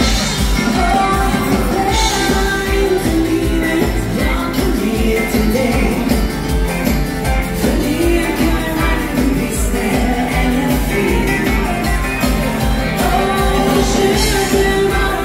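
Live dansband music: an upbeat rock'n'roll/bugg number with a female singer over drums, bass and keyboards, driven by a steady, even beat.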